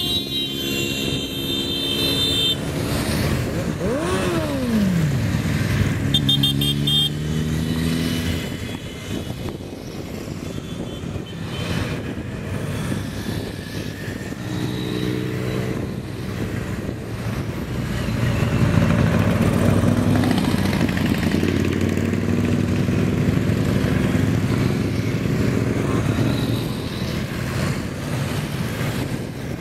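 Motor vehicles of a convoy going by one after another, their engines running and revving in turn. One engine's pitch drops sharply about four seconds in.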